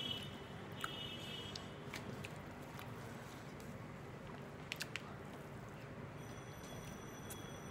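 Eating by hand: fingers squishing and mixing rice and meat on a plate, with soft chewing and a few sharp clicks, three in quick succession about five seconds in, over a low steady hum.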